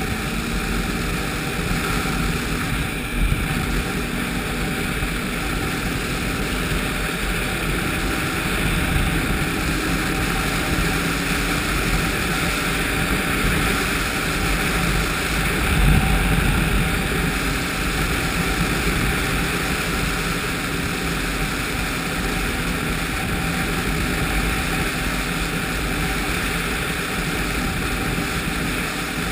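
Ski-Doo snowmobile with a 1200 4-TEC four-stroke engine running steadily at speed, with wind rushing over the helmet-mounted microphone. The level barely changes, apart from two brief louder moments.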